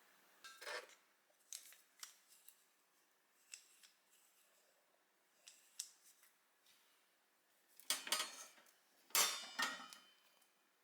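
Kitchen tools and containers being handled: scattered light clicks and clatters, with a louder run of clatter about eight and again about nine seconds in.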